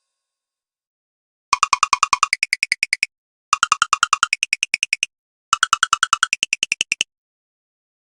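Alcatel OT 660 ringtone played back as MIDI: a rapid electronic trill of about eight pulses a second, stepping up in pitch partway through each burst. It comes three times, each burst about a second and a half long and starting every two seconds, after a second and a half of silence.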